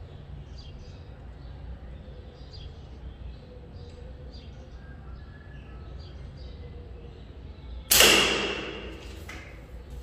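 A single shot from a pocket slingshot with 7-inch rubber bands: a sudden loud snap about eight seconds in that fades away over about a second, followed by a faint tap. Before it, only a low steady hum.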